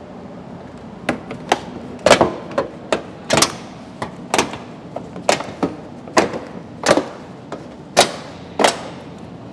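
Plastic wheel-arch flare on a Ford Ranger Raptor being worked up and off its retaining clips by hand: a long series of sharp snaps and pops at uneven intervals, about two a second, as each clip lets go.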